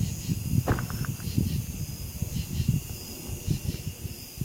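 Crickets chirping faintly and steadily in the night air, over a low, uneven rumble.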